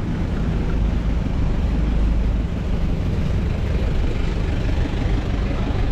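Street traffic stuck in a jam: car and truck engines running close by, a steady low rumble.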